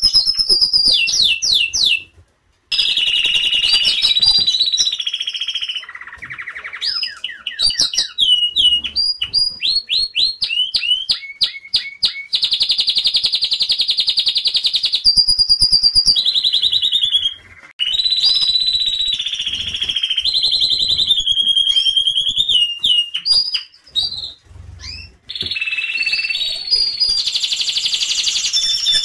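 Domestic canary singing: a long run of fast trills and rolled notes, with repeated chirps that sweep up and down in pitch, broken by a few brief pauses.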